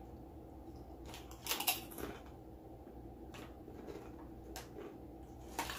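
Close-up eating and handling noises: a cluster of crackles about a second and a half in, then a few single clicks, over a steady low hum.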